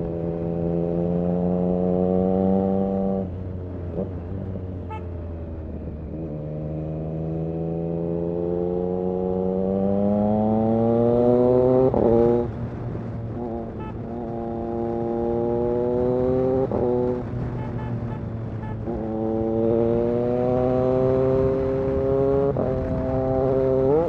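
Triumph Street Triple RS 765's inline three-cylinder engine through an SC Project S1 exhaust, accelerating through the gears: the note climbs in pitch, drops back at each shift, and climbs again, several times over.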